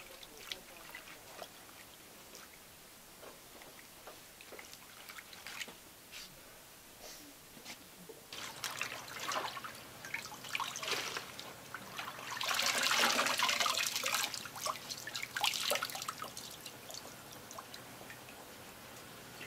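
Water splashing, pouring and dripping off a length of wet cloth as it is worked in a wooden tub and then lifted out, the water streaming back into the tub. It starts with faint scattered drips, grows to a steady run of water about two-thirds of the way through, and tails off into drips near the end.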